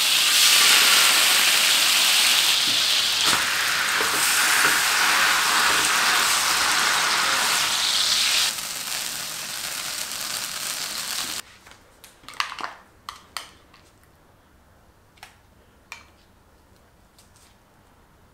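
Red tomato-paste sauce sizzling loudly in a hot frying pan. The sizzle grows quieter about eight seconds in and cuts off suddenly a few seconds later, leaving a few faint clicks.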